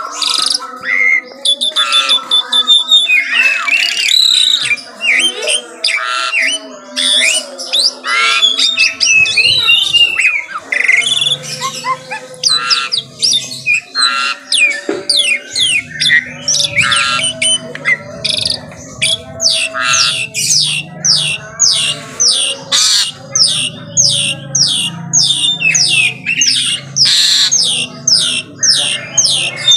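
Pied starling (jalak suren) singing loudly: a varied jumble of harsh squawks, whistles and chatter, breaking into fast runs of short, clipped notes from about halfway.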